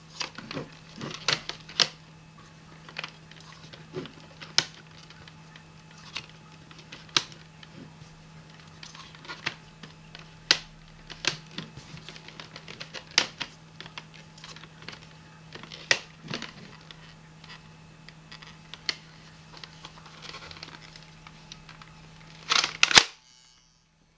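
Irregular plastic clicks and knocks from handling a Mega Bloks Trigger Happy foam-dart blaster and pushing darts into its barrels. A louder clatter comes a second or so before the end, then the sound cuts off.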